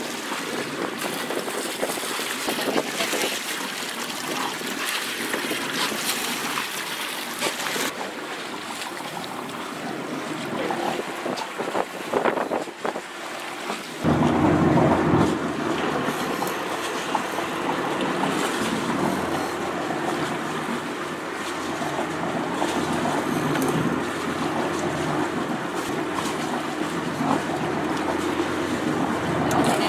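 Wind buffeting the microphone and sea water washing against a boat's hull out on open water. About halfway through the sound changes abruptly and a steady low hum joins the wind and water.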